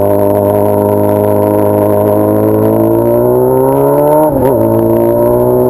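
Honda Hornet inline-four motorcycle engine breathing through a 3-inch exhaust, running loud under way. Its note holds steady, climbs slowly, then drops back sharply about four seconds in, as on a gear change, and settles lower.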